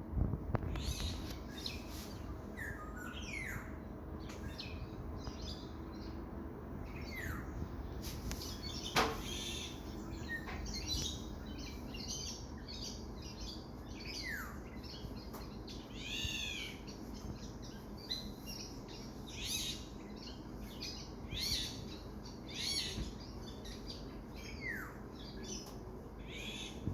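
Black-naped oriole calling amid dense birdsong: many short high chirps all through, with falling slurred whistles now and then.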